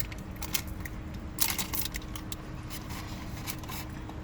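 Close-up eating and food-handling sounds: scattered small clicks and crackles, with a louder crackling rustle about a second and a half in.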